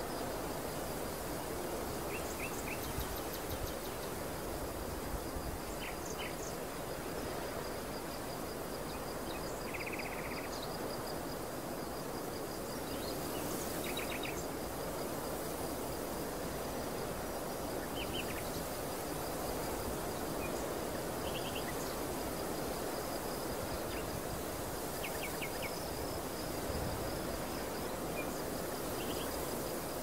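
Wind blowing over an open barley field, a steady rushing, with short bird chirps scattered through it and a thin, steady high-pitched tone.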